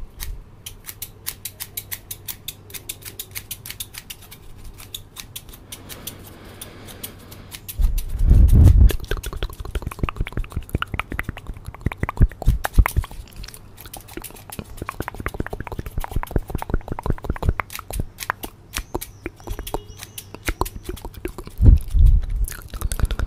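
Scissors snipping rapidly, close to the microphone, as many quick sharp clicks, mixed with hands rustling over the microphone. There is a louder low rubbing about eight seconds in and again near the end.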